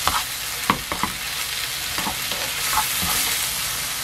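Rehydrated dried zucchini slices and onion frying in a nonstick pan with a steady sizzle, stirred with a wooden spoon that taps and scrapes against the pan a few times.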